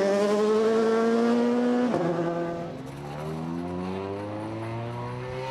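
Rally car engine accelerating hard, its pitch climbing steadily. About two seconds in, an upshift drops the pitch sharply, and the engine pulls up again, a little quieter.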